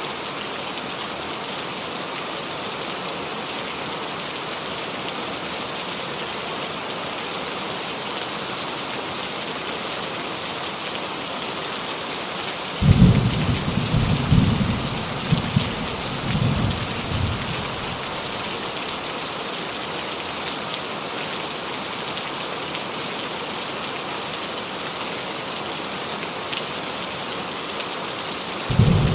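Rain falling steadily on a roof. About 13 seconds in, a sudden clap of thunder rolls and rumbles for around five seconds, and another rumble of thunder starts near the end.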